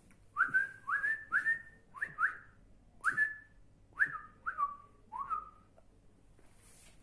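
A person whistling a string of about nine short chirps, most sweeping sharply up and then holding briefly, the last few sliding down, spread over the first five and a half seconds.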